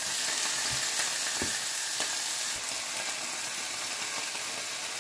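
Pickled jalapeño slices sizzling with a steady soft hiss in a frying pan as cheddar cheese slices are laid over them, with a few faint light knocks.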